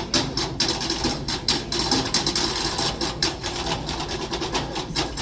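Marching band percussion playing a fast, even rhythm of sharp strikes, about five a second.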